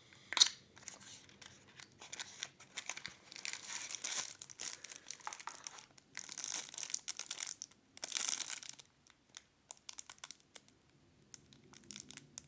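Small cardboard product box being opened and handled by hand: a sharp snap about half a second in, then bouts of rustling, scraping and crinkling packaging with short pauses between them.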